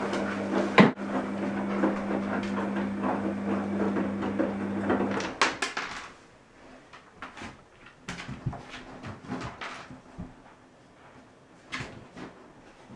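Washing machine running with a steady motor hum and churning noise, with a sharp click about a second in. The drum stops about five seconds in with a few clicks. After that come only scattered light clicks and knocks.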